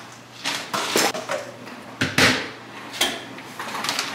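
Dishes and utensils being handled: a string of irregular knocks and clinks as things are set down and moved about.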